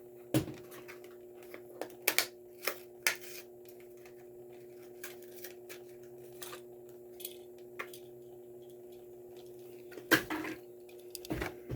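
Toy car packaging being pulled and torn open by hand: scattered clicks, crackles and short rustles of cardboard and plastic, busiest in the first few seconds and again near the end, over a steady low hum.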